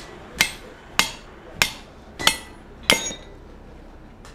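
Hammer blows driving a steel drift through the punched eye of a red-hot steel bar on the anvil. Five sharp metallic strikes come about 0.6 s apart, each ringing briefly, then stop a little before the end as the drift goes through.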